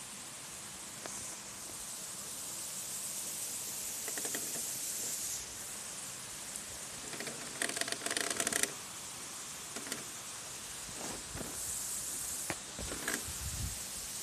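Radio-controlled rock crawler's electric motor and drivetrain whining briefly, about eight seconds in, as the truck creeps over rock, with a few faint clicks around it. A steady outdoor hiss runs underneath.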